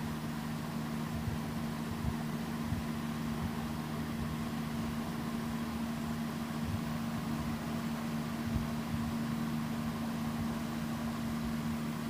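Steady low machine hum with two constant tones over an even background hiss, unchanging throughout.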